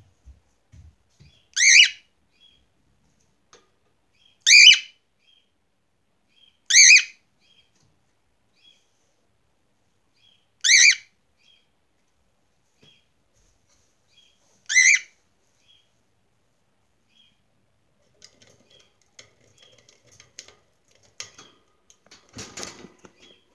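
Cockatiel screaming: five loud, short, high-pitched calls a few seconds apart, with faint soft chirps between them. A brief rustling noise near the end.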